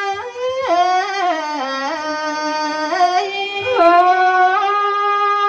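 Solo melody of a Thái folk song: a single line of long held notes that slide and waver between pitches.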